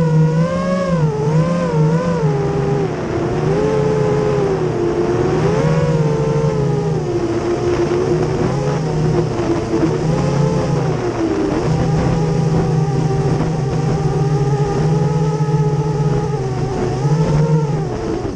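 FPV racing quadcopter's four Racerstar BR2205 2300KV brushless motors and propellers whining in flight, the pitch rising and falling with the throttle, with wind rushing over the onboard camera's microphone.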